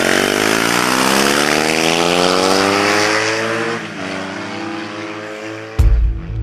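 Motorcycle engine accelerating hard, its pitch rising steadily, then dropping once at an upshift and climbing again, with rushing wind noise. Music runs underneath, and a heavy bass beat kicks in near the end.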